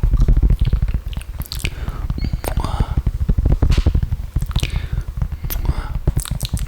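Close-miked wet mouth sounds: many quick, irregular saliva clicks, smacks and squelches over a low rumble.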